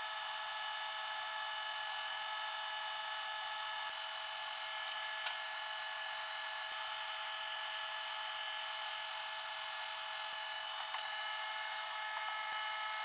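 A steady high whine made of several fixed tones, unchanging throughout, with a few faint ticks.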